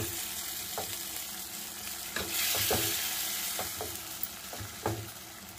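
Onion and tomato sizzling in oil in a pan on low flame while a spoon mashes and stirs them, knocking against the pan about six times. The sizzle swells for about a second near the middle.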